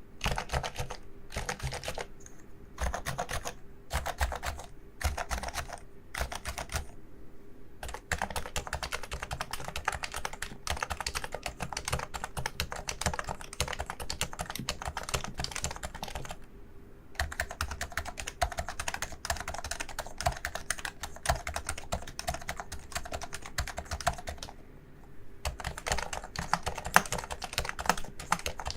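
Typing on a Realforce Topre electro-capacitive keyboard: rapid, dense keystrokes, in short separate bursts at first, then long continuous runs with brief pauses about a third and two thirds of the way through.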